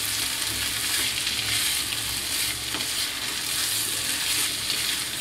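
Spatula stirring and scraping a thick grated papaya and potato curry around a non-stick kadai, over a steady sizzle of the dish frying on the gas flame.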